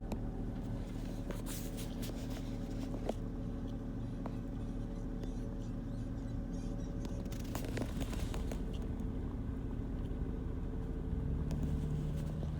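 A car's engine idling, heard from inside the cabin: a steady low hum that steps up slightly in pitch near the end, with a few faint clicks and scrapes over it.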